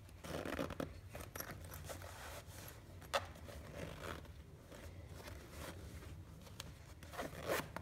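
Metal zipper on a small canvas pouch being pulled closed in short, uneven stretches around its curved opening, with the cloth rustling and soft clicks as the pouch is handled.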